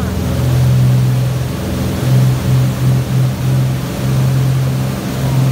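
Cummins QSC 500 marine diesel engines running at speed on a sea trial, a steady low drone mixed with the rush of the churning wake.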